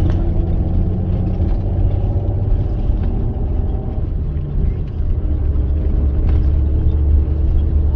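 Bus engine running with a steady low rumble of engine and road noise while driving.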